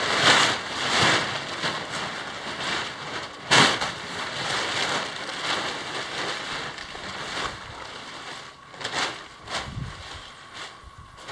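Blue plastic tarp being shaken out and spread on the ground: crinkling, flapping rustles, loudest in the first second with a sharp snap about three and a half seconds in, then dying down toward the end.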